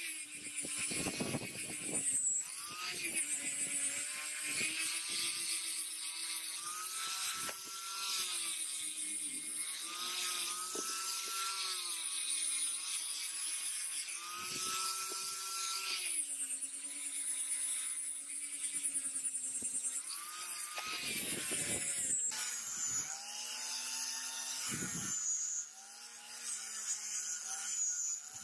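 Small handheld rotary tool running a polishing wheel against a steel knife blade: a steady motor whine whose pitch sags and recovers as the wheel is pressed on and eased off, over the hiss of the wheel rubbing the metal.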